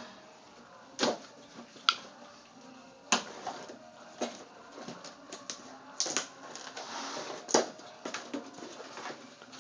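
Irregular sharp clicks and knocks with some rustling, from a gift being handled and opened by hand.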